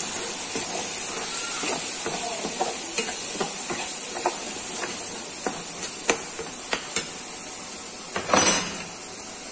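A steel spoon stirring mustard paste and ground spices in hot oil in a metal kadai: a steady sizzle with repeated short clicks and scrapes of the spoon on the pan, and one louder scrape near the end.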